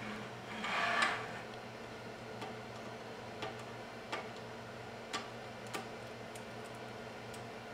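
Sparse small clicks and taps, five or six over several seconds, as fingers pick at a freshly 3D printed plastic part on the printer's build plate. A brief scraping rustle comes about a second in, and a steady low hum runs underneath.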